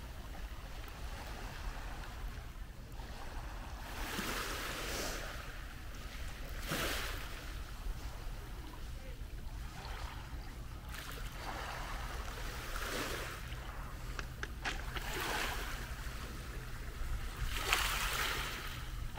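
Small waves washing in on a shingle beach, a hissing wash of water over the pebbles every few seconds, over a low steady rumble.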